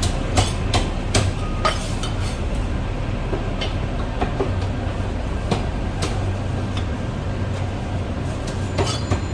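Chinese cleaver slicing marinated cuttlefish on a thick wooden chopping block: a series of sharp knocks of the blade on the wood, about two or three a second over the first two seconds, then sparser, over a steady low hum.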